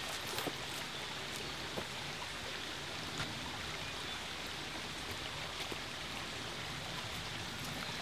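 Steady rush of a small forest stream flowing well, with a few faint ticks and snaps over it.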